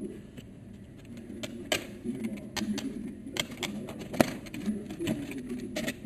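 Hard plastic parts being handled: a car air-conditioning vent and a thin plastic sheet from a DVD case tapping and clicking against each other, with scattered sharp clicks, the loudest about four seconds in.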